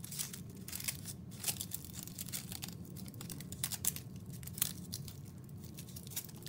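Gold foil candy wrapper around a stone crinkling as fingers handle it: faint, irregular crackles and small ticks.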